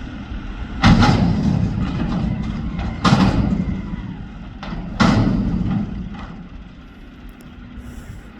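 Mack McNeilus front-loader garbage truck dumping a steel dumpster: three loud metal bangs about two seconds apart, each ringing out, as the raised container is knocked to shake the trash into the hopper, over the truck's running engine.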